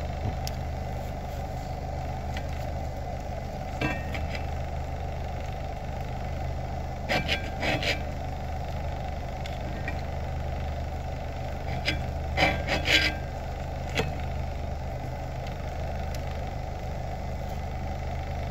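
Steady low hum, with a few short clinks and clatters of a utensil against a pan as the steak is checked: one about four seconds in, small clusters around seven and twelve seconds, and one more a little later.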